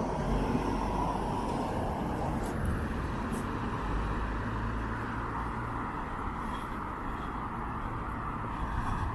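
Town-street traffic: a motor vehicle's engine running nearby with a steady low rumble.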